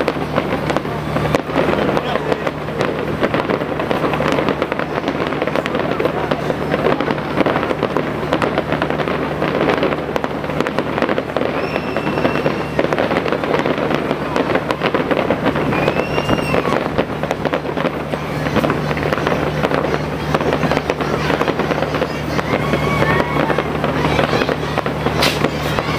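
Fireworks display going off continuously, a dense, steady crackling and popping of many bursts overlapping one another.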